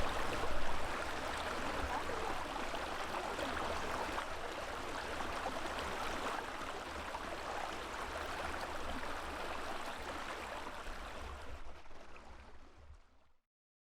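A mountain creek babbling as a steady rush of running water, fading out near the end.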